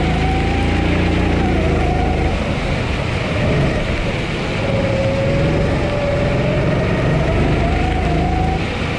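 Honda GX270 single-cylinder four-stroke engine of a Sodi SR4 kart running under load. Its revs drop once and then climb steadily again as it drives through the corners, over the hiss of a wet track.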